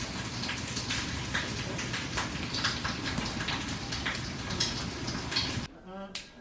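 Food sizzling in a frying pan on a gas stove: a steady hiss with many small crackles and pops. It stops abruptly near the end.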